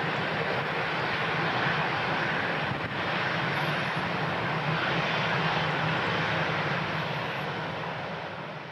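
Boeing 737-800's CFM56 jet engines running loud and steady as the airliner rolls along the runway, with a steady low hum beneath the jet noise; the sound fades out near the end.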